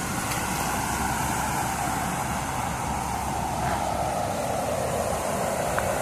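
Steady rushing of a creek's water over the rocks of a small waterfall, an even noise that holds without change.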